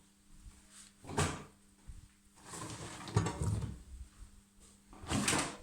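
Miele Novotronic W1514 washing machine working in short separate bursts of movement about a second in, from about two and a half to four seconds in, and near the end, with thuds and rustling, over a faint steady hum.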